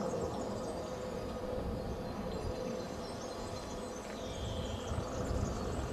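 Outdoor ambience: a steady low rumble with faint bird chirps above it, and one short, higher held call about four seconds in.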